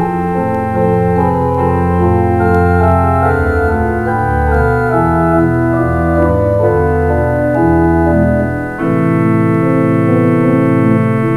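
Organ music: slow held chords that change every second or so. About nine seconds in it dips briefly, and a fuller, brighter chord begins.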